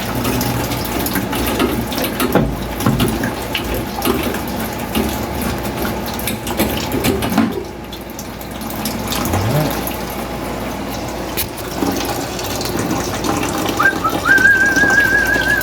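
Water pouring and splashing from a cut half-inch copper water line into a bucket. A high wavering whistle starts near the end.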